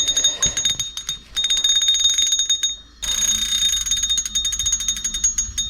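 Fishing reel's drag buzzing in a high steady whine with rapid clicks as a hooked lake trout pulls line off the spool, with short breaks about a second and a half in and near three seconds when the run pauses.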